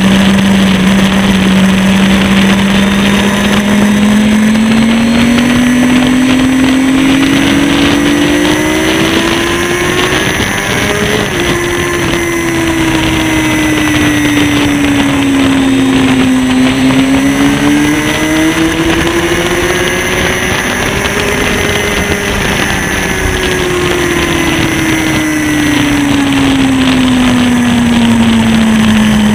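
Sport motorcycle engine under way at speed, heard from the bike itself with wind noise. The engine note climbs as it accelerates, drops sharply at a gear change about a third of the way in, sinks as it slows, climbs again, then falls steadily toward the end.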